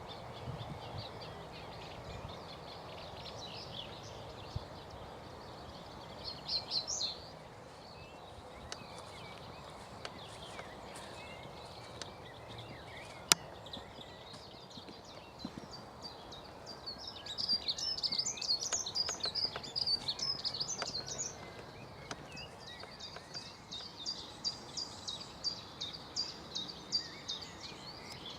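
Songbirds singing over a steady outdoor hiss: a short phrase about six seconds in, a busy burst of song a little past halfway, and a fast run of repeated high notes near the end. A single sharp click just before halfway.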